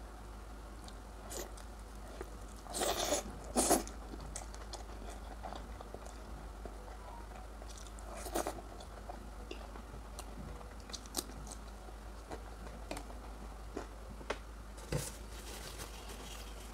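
A person eating close to the microphone, biting and chewing with scattered crunches. The two loudest crunches come about three seconds in, followed by a few single sharp crunches later.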